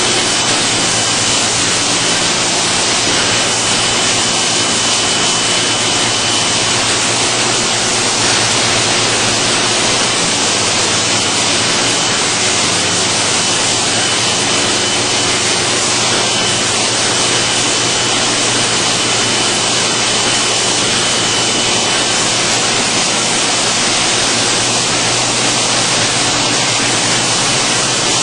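LS-306 vegetable washing machine running: a loud, steady rush of water and air over a low motor hum, with a faint high whine that comes and goes.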